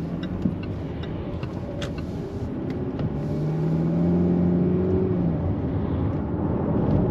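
Jaguar F-Type engine and road noise heard inside the cabin as the car accelerates: the engine note grows louder and rises slightly about three seconds in, then eases off about five seconds in.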